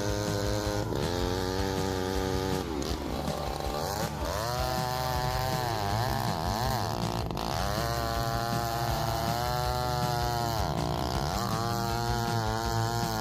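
Large chainsaw running in a heavy cut, its engine note sagging and climbing back up several times as the chain loads up in the wood and frees again.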